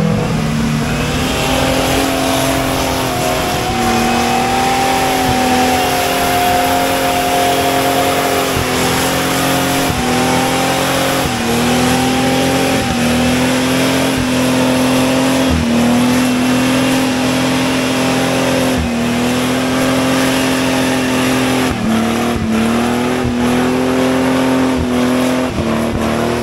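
Off-road 4x4's engine revved hard and held at high revs under load climbing a muddy hill, its pitch dipping briefly every few seconds and picking straight back up.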